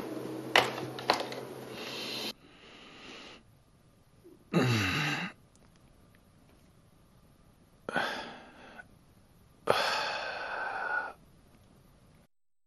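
A man breathing out loudly about five times, breathy sighs of one to two seconds each, one of them voiced and falling in pitch like a groan. Two sharp clicks come in the first second or so.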